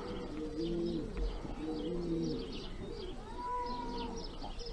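Domestic pigeons cooing over and over, low rolling coos coming about once a second, with faint high chirps above them.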